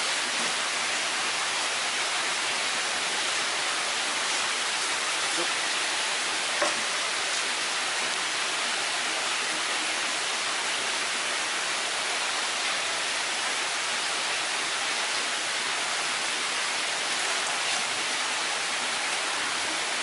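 Steady rushing of running water, as from seawater flowing through live-fish tanks. There is a single light knock about six and a half seconds in.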